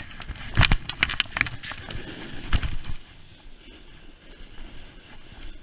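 Snowboard knocking and scraping on snow as the rider pushes off, several sharp knocks in the first three seconds, then the steady hiss of the board sliding downhill through the snow.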